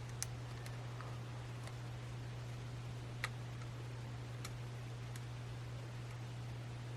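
Faint, irregular small clicks of a dimple pick and tension tool working the pins inside an Angal US3 pin-in-pin dimple lock, one louder click about three seconds in, over a steady low hum.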